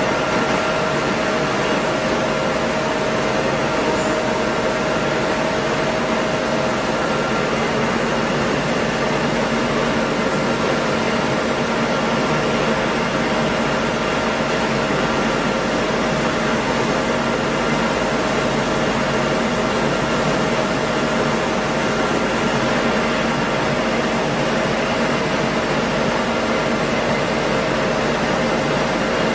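Stone flour mill running: a steady machine hum with a few constant tones over an even noise, unchanging throughout.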